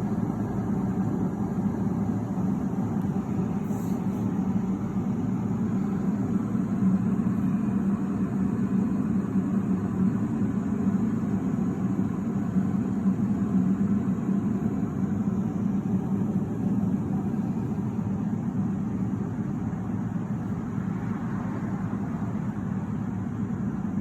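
Electrolux E7K1-6BP electric kettle heating water, a steady rumbling hiss of water coming toward the boil.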